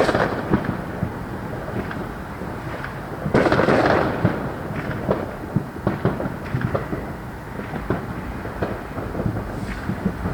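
Fireworks going off: a sharp bang at the start, a louder crackling burst about three seconds in, and scattered pops and crackles over a low, continuous rumble of booms.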